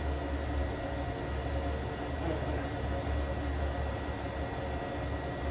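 Steady mechanical hum of a fan-driven machine running, with a low drone and a faint high, steady whine.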